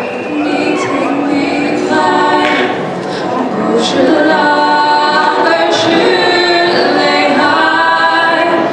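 Female singing into microphones with electronic keyboard accompaniment, a slow song with long held notes, amplified through the hall's sound system.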